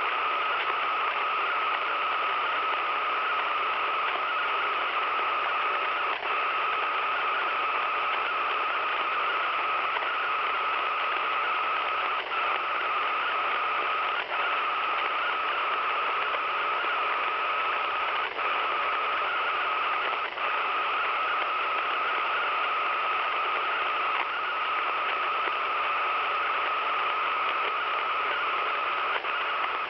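Radio receiver giving out steady static through its speaker, a constant hiss with a stronger whine-like band running through it, broken by a few brief dropouts.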